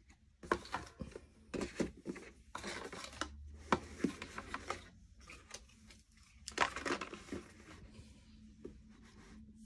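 Handling of a plastic wall clock and its cardboard packaging: irregular rustles, scrapes and light knocks, coming in three busy spells with short pauses between them.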